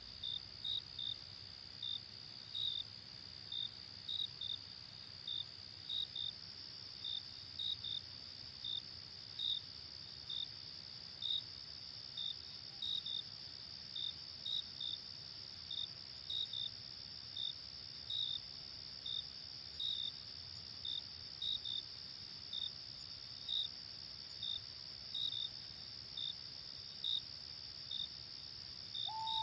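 Crickets chirping in short chirps, often in pairs, about one a second, over a steady high insect trill.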